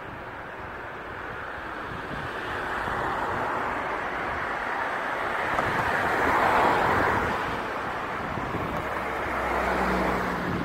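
Gale-force wind blowing, with a car passing on the wet road. The hiss swells to its loudest a little past halfway.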